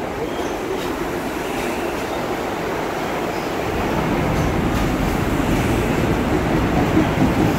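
Long Island Rail Road M9 electric multiple-unit train rolling along the platform close by: a steady rumble of wheels and running gear that grows louder about four seconds in.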